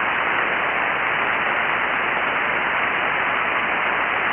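Steady hiss of band noise from an HF receiver on 40-metre single sideband, cut off sharply above about 3.5 kHz by the receive filter.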